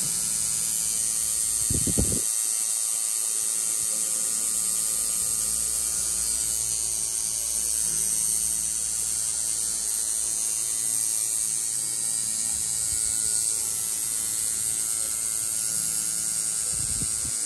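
Electric tattoo machine buzzing steadily as it works.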